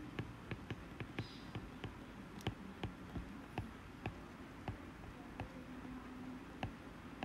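Stylus tip tapping and ticking on a tablet's glass screen during handwriting: light, irregular clicks, a few a second.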